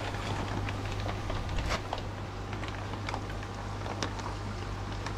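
Steady low hum of a pump, with irregular small clicks and water patter.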